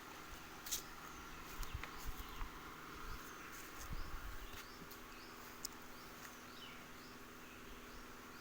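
Outdoor rural background: a steady insect-like buzz with repeated short falling chirps of small birds, and a few faint clicks in the first half.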